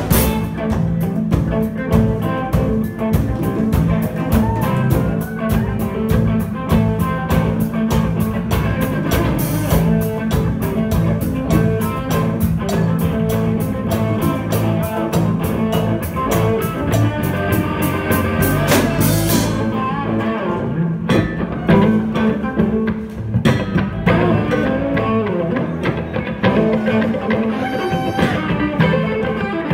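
Live band playing amplified rock: electric guitars over a steady drumbeat. The drumbeat stops about two-thirds of the way in, leaving the guitars ringing on.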